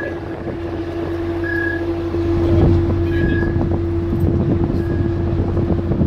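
Steady drone of ship's engines and machinery, with wind on the microphone. A short high beep repeats about every one and a half seconds.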